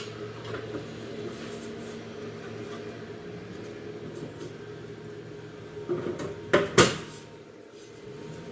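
Metal door of a Notifier fire alarm control panel being opened: a few light knocks, then two sharp clanks about six to seven seconds in. A steady low hum runs underneath.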